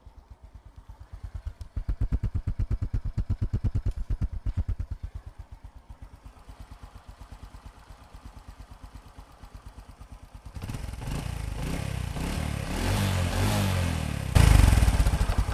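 A freshly overhauled Honda Future X's 125 cc single-cylinder four-stroke fuel-injected engine running with even firing pulses. It picks up speed for a few seconds about two seconds in, settles back to idle, then runs faster and louder from about ten seconds in, with a further rise near the end.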